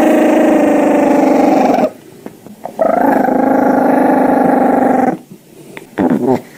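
Dog growling: two long, steady growls of about two seconds each, with a shorter growl near the end.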